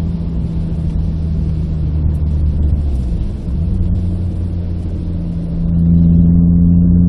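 Renault Clio RS 172's 2.0-litre four-cylinder engine under way, heard from inside the cabin, with road noise. The engine note dips briefly about three and a half seconds in, then runs louder and steadier near the end.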